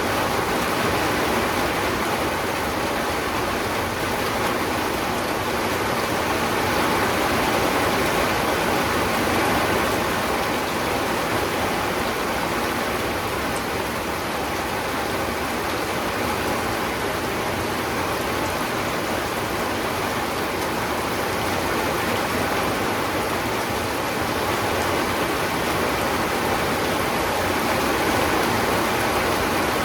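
Steady, heavy rainfall: a dense, even hiss of drops with no distinct single drips.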